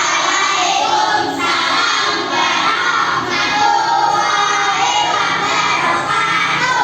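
A class of young children singing together in unison, many voices loud at once.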